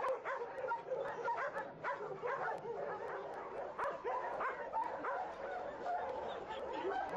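Many kennelled dogs barking and yelping at once, a constant overlapping chorus of short barks and yips.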